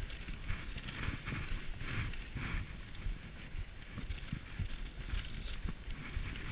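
Dog sled moving over snow: the runners' rumbling, hissing scrape, with wind buffeting the microphone.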